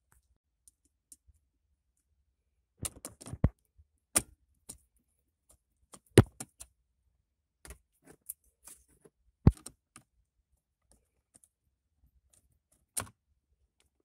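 Scattered sharp plastic clicks and knocks from parts of a car's centre console being handled around the gear shifter, with a cluster about three seconds in and the loudest knock about six seconds in.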